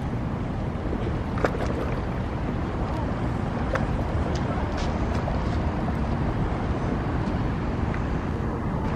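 A motor yacht's engines give a steady low rumble as it passes, mixed with wind on the microphone, and a few faint ticks show through.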